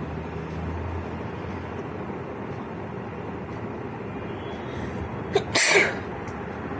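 A single sharp sneeze from a person about five and a half seconds in, just after a brief click, over a steady background hum.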